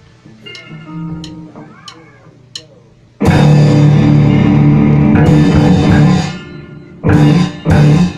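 Rock band recording: a quiet intro with four evenly spaced sharp ticks, then about three seconds in the full band comes in loud with guitar and drum kit. Near the end it breaks into short stop-start hits.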